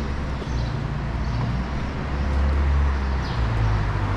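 Street traffic: a steady low engine rumble from vehicles on the road, over a faint background hum of the street.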